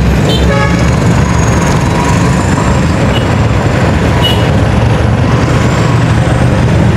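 Road traffic with a vehicle engine running steadily, a continuous low drone under a dense rumble.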